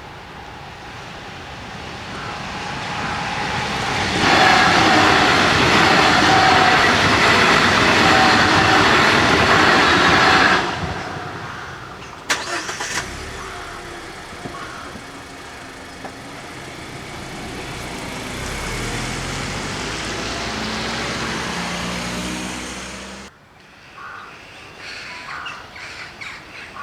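A train passing over the level crossing: a loud rushing rumble that builds for a few seconds, runs for about six seconds and then drops away sharply. After a single clack, a road vehicle's engine pulls away with rising pitch, and the sound cuts off abruptly near the end.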